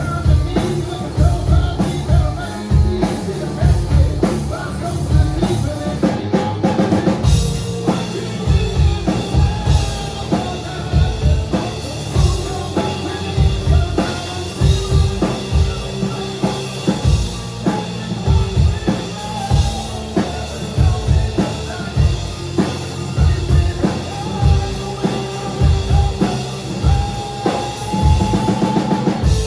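Rock band playing live: a drum kit keeping a steady beat under electric guitars, with held, sustained guitar notes over it and no words sung.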